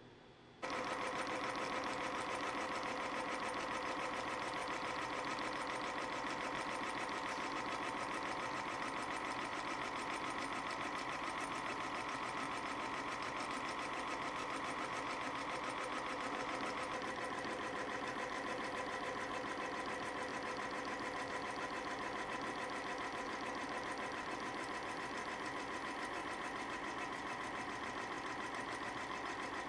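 YHM CF Series CNC spring coiling machine running at speed, coiling and cutting 0.2 mm wire compression springs at about 400 a minute. It makes a fast, even mechanical chatter with a steady whine, starting abruptly just after the beginning.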